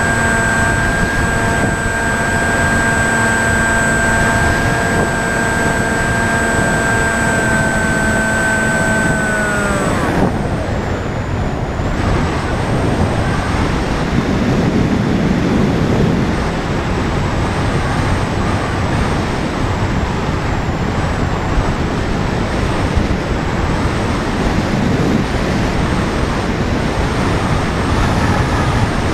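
Penguin FPV plane's electric motor and propeller whining at a steady pitch, then the whine drops sharply in pitch and stops about ten seconds in. After that, steady wind noise rushes over the onboard camera's microphone.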